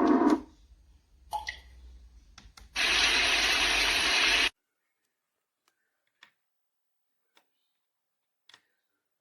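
White noise machine switching between its sound presets. A deep noisy sound cuts off just after the start, then a burst of hissing white noise plays for about a second and a half and stops suddenly. A few faint clicks follow.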